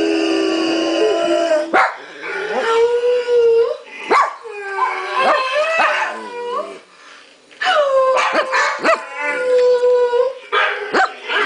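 Dogs howling: long held notes, several sliding down in pitch before holding, broken by short yips. A dog howls along with another dog's howling played through a computer's speakers.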